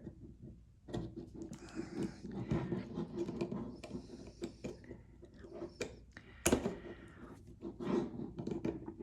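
Small clicks, taps and scraping from a wheelchair brake cable being worked into its plastic brake-handle housing, with one sharper knock about six and a half seconds in.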